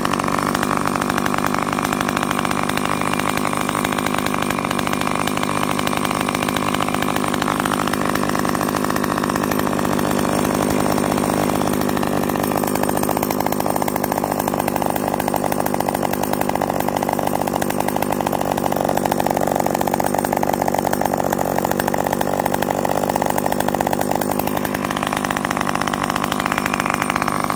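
Echo 330 EVL two-stroke chainsaw engine running steadily at an unchanging speed.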